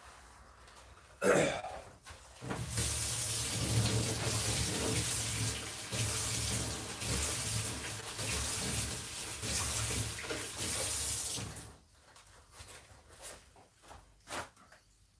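A sharp knock, then water running from a tap in a steady rush for about nine seconds before it is turned off, followed by a few faint knocks.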